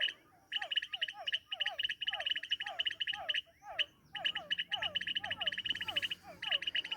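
A chorus of small animals calling: a rapid high trill in long bursts with brief breaks, over a steady series of short sliding calls, about two or three a second.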